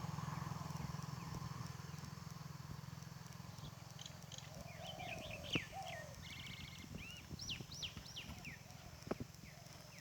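Small birds chirping in quick, rising and falling notes from about four seconds in, with a couple of lower calls among them. A low engine hum fades away during the first few seconds.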